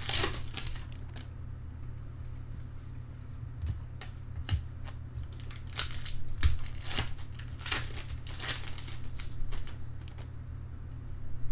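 2013 Bowman Draft trading-card packs being handled: foil wrappers crinkling and tearing, and cards sliding against each other, in irregular rustles and swishes.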